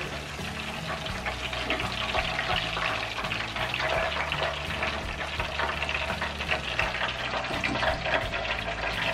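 Whole slit baby eggplants, fully fried, sizzling and crackling in hot mustard oil: a dense, even crackle over a steady low hum.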